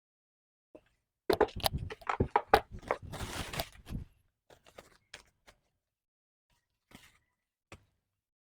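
A quick run of knocks and clicks with a short rustling scrape in the middle, then a few faint, scattered clicks.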